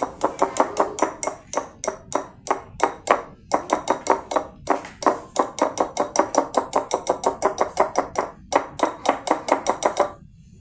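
Rapid, steady clinking of a utensil striking a dish, about five strikes a second, each with a short ring, like eggs being beaten or a cup being stirred. It stops shortly before the end.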